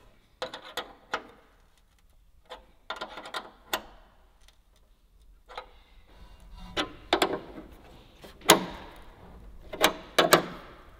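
A wrench clicking and tapping on a metal brake-line fitting as its nut is tightened into a plastic bracket. The clicks come in several short clusters, the loudest in the second half.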